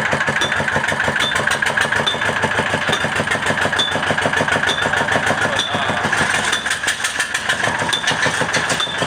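Kala desi oil engine, a Pakistani stationary diesel, running steadily with a fast, even knock and a sharp tick repeating a little more than once a second.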